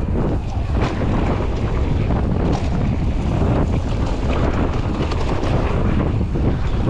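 Wind buffeting the microphone of a helmet-mounted action camera as a mountain bike rides fast down a dirt-and-gravel trail, with tyre rumble and scattered short clicks from stones and the bike rattling.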